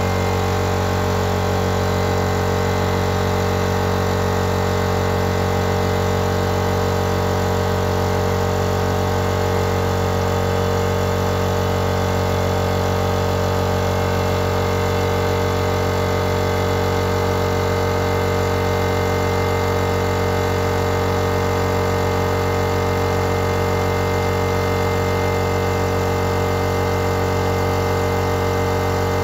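A motor running steadily at one constant speed, an even mechanical hum with a strong low drone and steady overtones.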